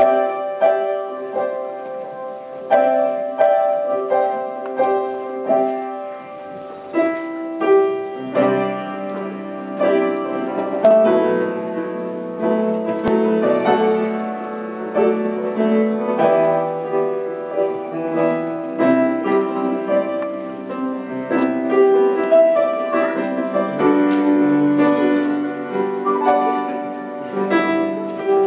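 Piano playing a slow piece, with notes and chords struck about once or twice a second and left ringing.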